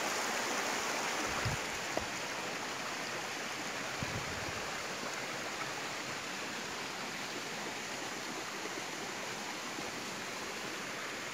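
Steady rushing of a rocky stream, water flowing over and between boulders, with a few faint knocks in the first few seconds.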